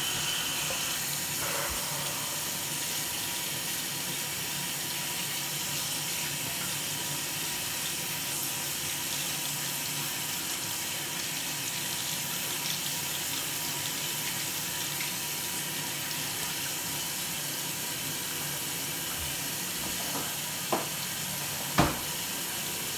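Tap water running steadily into a bathroom sink, with two sharp knocks near the end; the water cuts off just as it ends.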